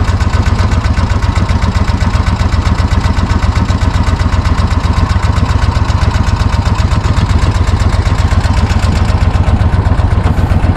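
Boat motor running steadily and loudly, a fast, even pulsing with a strong low rumble.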